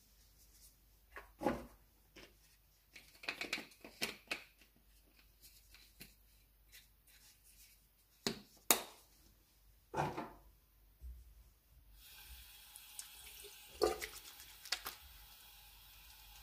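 Water splashing at a bathroom sink as hands wash the face with cleanser, with scattered small knocks and splashes. A tap starts running about twelve seconds in, a steady hiss under more splashing.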